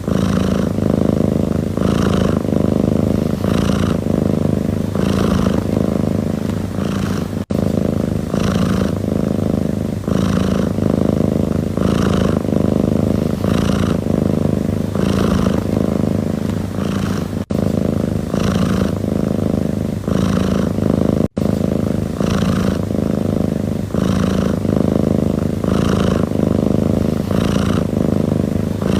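Domestic cat purring close up, a steady low rumble that swells with each breath about once a second. Three momentary dropouts break it.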